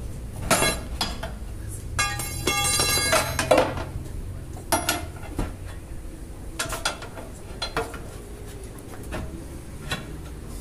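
Steel tyre irons knocking and scraping against the steel rim of a tractor wheel as the tyre bead is pried off the rim, with scattered ringing clanks. About two seconds in, a ringing metallic screech lasts about a second.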